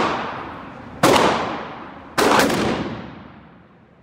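Gunshots in an indoor shooting range: two sharp reports about a second apart, each ringing out in a long echo in the hall.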